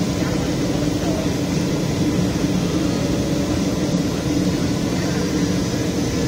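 Steady cabin noise inside a Boeing 737 jet airliner on its descent toward landing: an even rush of air with a low, constant engine hum.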